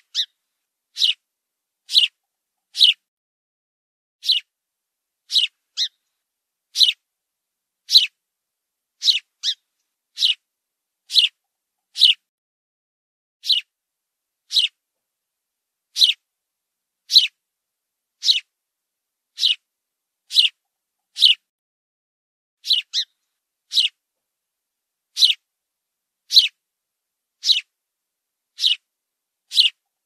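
House sparrow chirping: short, sharp cheeps about once a second, some in quick pairs, with silence in between.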